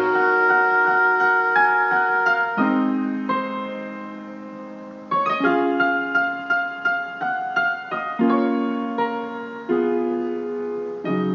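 Background music: slow jazz-hop keyboard chords, struck and left to ring, softer for a while in the middle.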